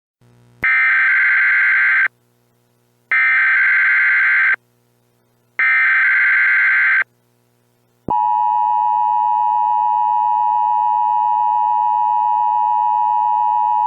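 Emergency Alert System broadcast tones. First come three SAME digital header bursts, each about a second and a half long, with a second's pause between them. About eight seconds in, the steady two-tone EAS attention signal starts and holds, announcing an alert.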